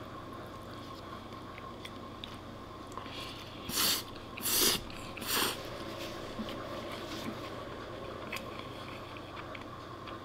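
A person slurping a forkful of spaghetti, three short, loud sucking pulls a little under a second apart about four seconds in, then quiet chewing.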